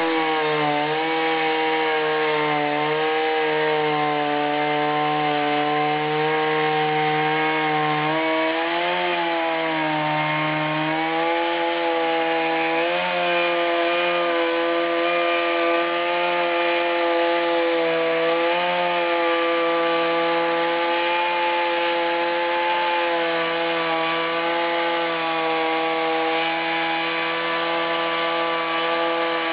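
Chainsaw on an Alaskan chainsaw mill ripping through a log, its engine running steadily at high speed under load, the pitch wavering briefly a few times.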